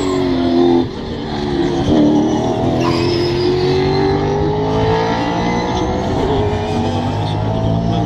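V8 saloon race cars running on the circuit: the engine lifts off with a sudden drop in level about a second in, then its note climbs steadily in pitch as it accelerates.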